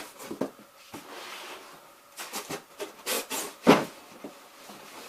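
Cardboard packaging being handled: a string of short taps, scrapes and rustles, with a soft hiss about a second in and the loudest knock about two-thirds of the way through.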